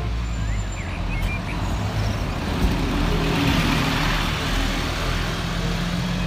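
Scania city bus engine running as the bus pulls away, a steady low hum over street noise that grows a little louder about halfway through.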